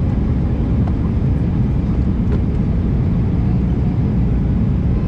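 Steady low rumble of engine and airflow noise inside an Airbus A319-112 passenger cabin.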